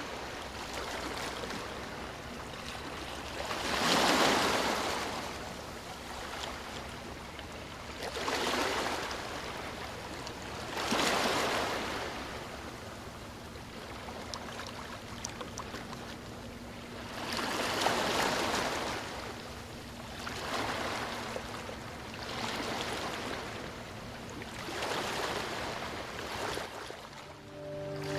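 Sea water rushing steadily, swelling into louder surges of waves every few seconds.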